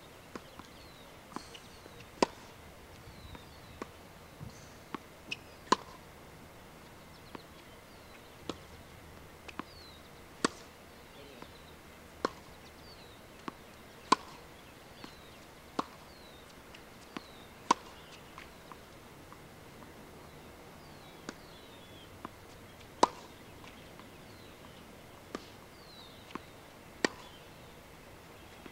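Tennis balls struck with a racket and bouncing on a hard court: sharp pops every second or two, the loudest every few seconds.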